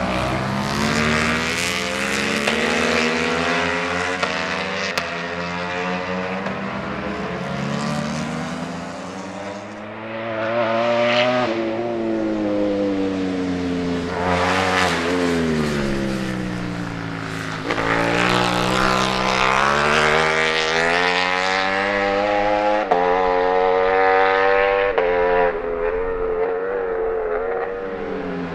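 Several Ducati Panigale V4 superbikes passing at racing speed, their V4 engines revving hard. The pitch repeatedly rises and falls as bikes accelerate, shift and go by, with some passes overlapping.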